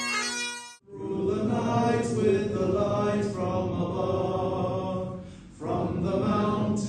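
Bagpipes playing over a steady drone, cut off abruptly just under a second in. Then a slow, sustained melody is sung or chanted by voice, with a short break about five seconds in.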